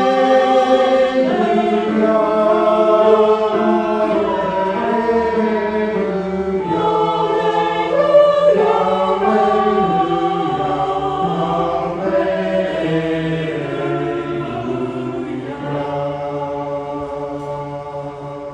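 Choir singing a sustained chordal piece without instrumental accompaniment, fading out gradually toward the end.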